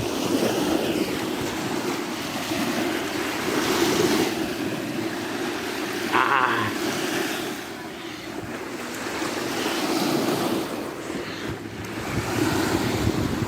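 Waves washing in on the reservoir in strong wind, surging and easing, with wind buffeting the microphone. About six seconds in, one wave splashes more sharply.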